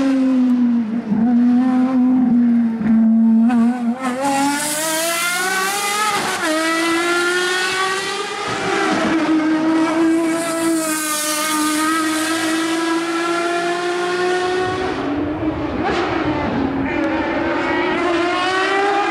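Ferrari FXX Evoluzione's V12 engine at high revs on track, its pitch climbing and breaking briefly at upshifts about six and eight seconds in, then holding high.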